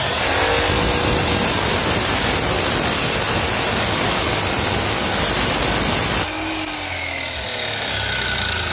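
DeWalt sliding miter saw, tilted to 45°, cutting through wood molding: motor running at full speed and the blade cutting steadily for about six seconds. Then the cut ends suddenly and a quieter whir remains as the blade winds down.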